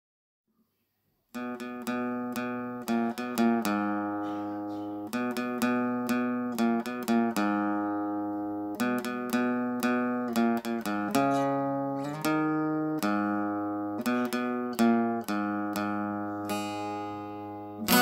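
Slow instrumental elegy played on a plucked string instrument: single notes and chords ringing and fading one after another. It starts after about a second of silence and grows fuller near the end.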